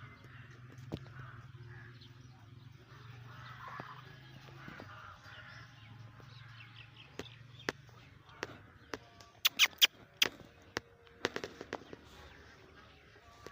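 Ducks quacking faintly, with a few sharp, loud knocks about ten seconds in.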